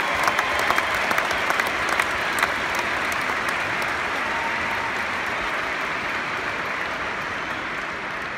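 Stadium crowd applauding, with sharp claps from people close by in the first few seconds; the applause slowly dies away.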